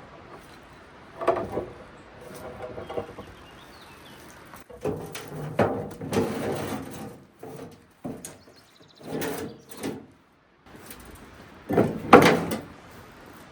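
Heavy slate slabs scraping and knocking as they are shifted and loaded into a wheelbarrow, in several separate bouts, the loudest near the end.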